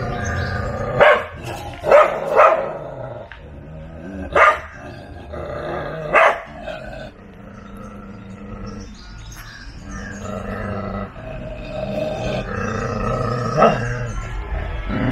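A spitz–native cross dog barking sharply about six times, five in the first six seconds and once more near the end, with growling between the barks. It is an aggressive warning at a person standing close to its cage.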